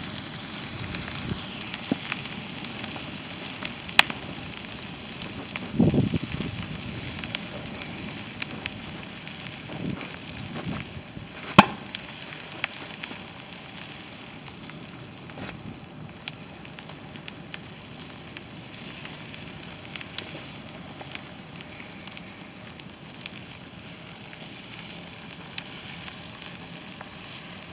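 A New Holland T175 tractor groomer burning: a steady hiss and crackle of flames with scattered sharp pops, the loudest about four seconds and about eleven and a half seconds in. There is a brief low rush about six seconds in.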